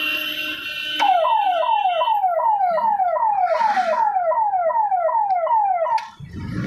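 A siren-like wail: a fast repeating falling tone, about two and a half sweeps a second. It starts about a second in and cuts off suddenly near the end.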